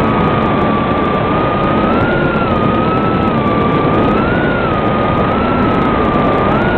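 Realacc Swallow 130 mini FPV quadcopter's motors and propellers in flight, picked up by its onboard DVR camera's microphone: a steady whine that rises briefly in pitch with each throttle push, several times, over a rough rushing hiss.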